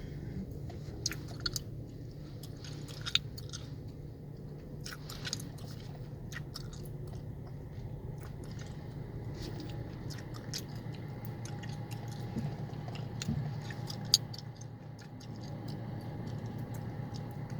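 Gum chewing close to the microphone: irregular wet smacks and sharp clicks, over the steady low hum inside a car.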